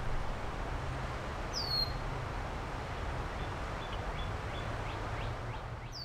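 Outdoor ambience of a steady hiss and low rumble with a few bird calls: one clear downward-sliding chirp about a second and a half in, a few faint short notes later on, and another downward chirp at the very end.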